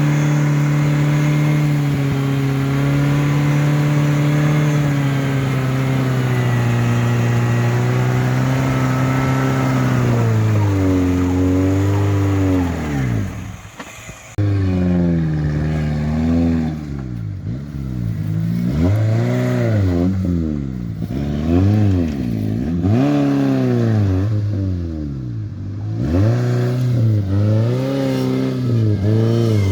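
Suzuki Samurai's engine running at a steady speed, then dropping off about twelve seconds in. After a break it revs up and down over and over, a surge every second or two, as the throttle is worked during off-road driving.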